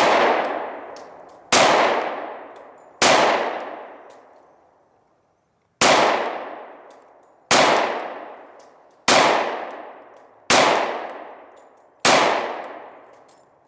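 Glock 20 10mm pistol fired eight times, roughly a second and a half apart with a longer pause after the third shot. Each shot is sharp and trails off over a couple of seconds.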